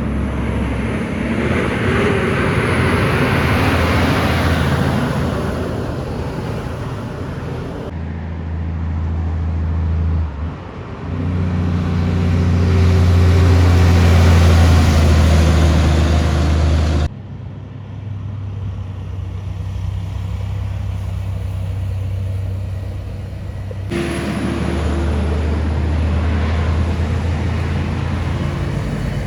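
Heavy trucks' diesel engines running deep and loud as they pass on a highway hill, with tyre and road noise. Several separate passes follow one another, with abrupt changes about 8, 17 and 24 seconds in.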